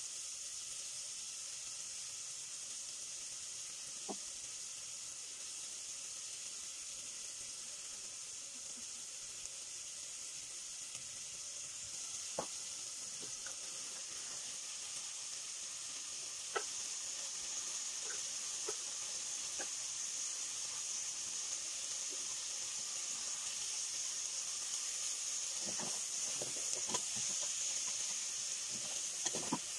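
Pork, tomatoes and long beans sizzling and simmering in an aluminium pot: a steady hiss that grows louder from about halfway. A few light clicks are heard, then a run of knocks near the end as a wooden spoon stirs the pot.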